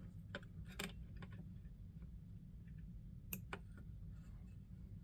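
A few faint, sharp clicks of small hand tools and a thin wire lead being handled as the wire on a replacement fuse is bent, over a steady low hum. Two clicks come in the first second and a close pair about three seconds in.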